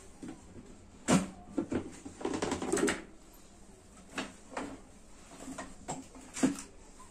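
Lid of a clear plastic storage box being unclipped and lifted open: a sharp click about a second in, then about a second of plastic rattling. After that come several separate lighter clicks and knocks as things are handled in a tool case.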